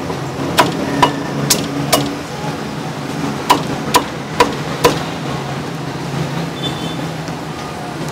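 A meat cleaver chopping braised meat on a thick round wooden chopping block: two runs of four sharp chops, about two a second, over a steady low background hum.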